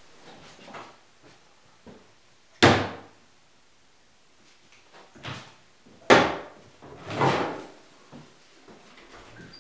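A hard black plastic carrying case handled on a tabletop: a sharp knock about two and a half seconds in, a smaller one, then a second sharp knock about six seconds in, followed by a longer, duller clatter.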